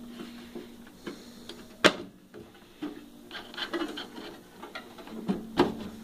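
Parts of a microwave oven's front control panel being handled and pressed back into place on its casing: a few sharp clicks and knocks, the loudest about two seconds in, with light rubbing and scraping between them.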